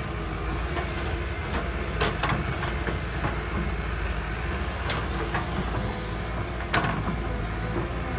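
Heavy machine's engine running steadily, with several sharp metallic clanks over it.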